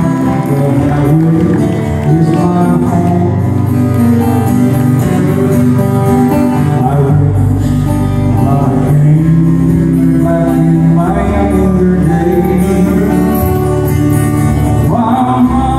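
Live country-western music: strummed acoustic guitars with a man singing into a microphone.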